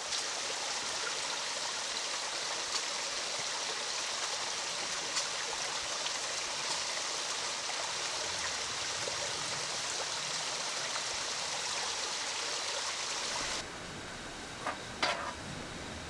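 Wind blowing through forest foliage, a steady rushing hiss of leaves. Near the end it cuts off abruptly to a quieter hiss with a couple of sharp clicks.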